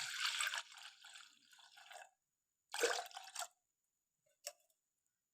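About half a kilo of milk being poured into a small tea saucepan, the pouring trailing off about two seconds in. A brief clatter follows, then a faint click.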